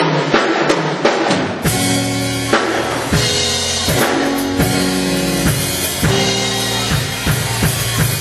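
Live church band starting a gospel song: a drum kit opens with a quick run of hits, then the full band comes in with held chords about a second and a half in, the drums keeping a steady beat under them.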